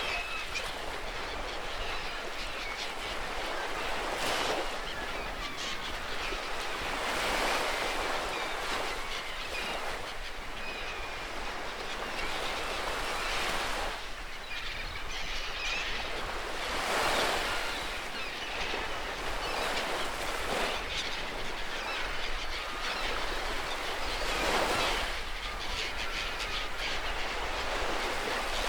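Wood fire crackling and hissing, with many small pops, swelling and easing back about every three to four seconds.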